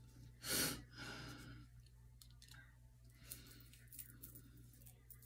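A person sighing near the microphone about half a second in, followed by a softer breath, then faint clicks and rustles over a low steady hum.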